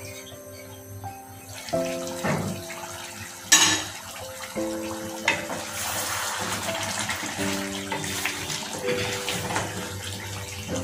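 A metal pan lid clanks off about three and a half seconds in, then a wooden spatula stirs and scrapes thick beef curry in a metal pan, the wet, sizzling curry being turned so it doesn't stick to the bottom while it braises. Background music with changing piano-like notes runs underneath.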